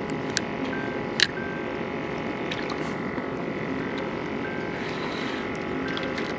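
Steady mechanical hum with water noise, broken by a few sharp clicks, the loudest about a second in.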